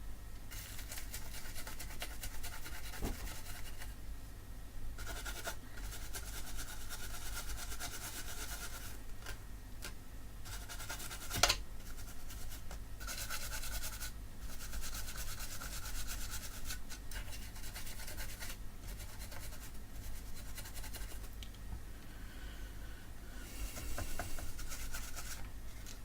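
A brush scrubbing the circuit board around the newly replaced capacitors, in stretches of rough, hissy scraping with short pauses between them. There is one sharp click about eleven seconds in.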